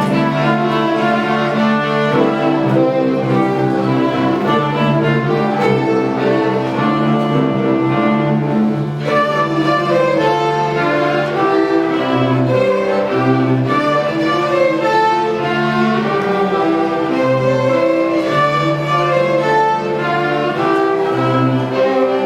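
A beginner string group, violins with lower strings beneath, playing a simple tune together with sustained bowed notes.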